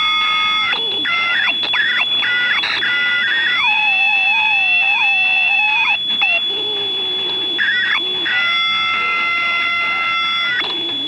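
Electrical interference from a MOSFET pulse circuit driven by an NE555 timer, heard through an AM transistor radio: warbling whistles that keep shifting in pitch, breaking off and restarting, over a steady high tone. The noise changes as the 555 timer flips between operating modes and as the charge-dump capacitor charges and discharges through a neon bulb.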